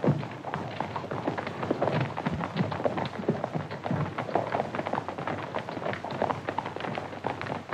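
Hoofbeats of several horses galloping on a dirt road: a dense, irregular clatter of hooves.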